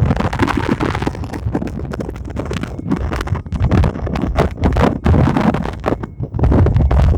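Strong wind buffeting the microphone: a loud, gusty low rumble broken by frequent thumps.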